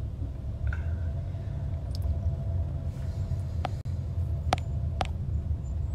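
Steady low rumble of a car heard from inside the cabin, with three short clicks in the second half.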